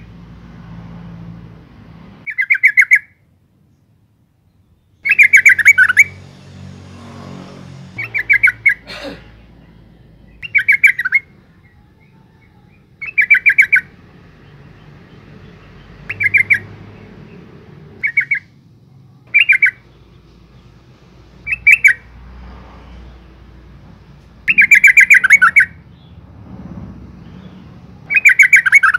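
Female yellow-vented bulbul (trucukan) calling: short, rapid, bubbling phrases, each about a second long or less, repeated every two to three seconds.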